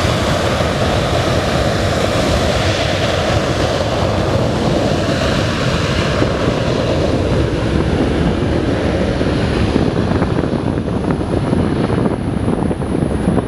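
Boeing 737-800's jet engines running as the airliner swings onto the runway and moves off away from the listener: a loud, steady rumble with wind buffeting the microphone. The higher hiss fades about halfway through as the tail turns toward the listener, and a thin high whine comes through.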